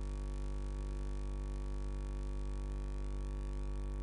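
Steady electrical mains hum, a constant low buzz with a stack of overtones above it, unchanging throughout.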